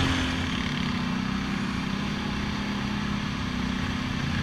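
ATV engine running at a steady pace while riding over gravel. The engine note eases slightly at the start, then holds.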